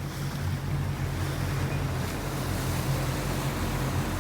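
Fishing boat at sea: wind buffeting the microphone and water noise over a low, steady engine hum.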